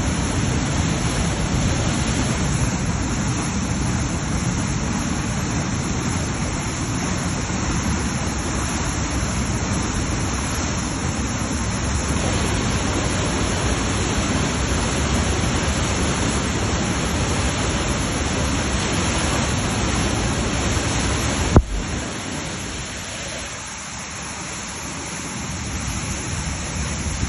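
Steady rushing of floodwater: a continuous noisy wash with no distinct pitch. A single sharp click about three-quarters of the way through; after it the rush is softer for a few seconds, then builds again.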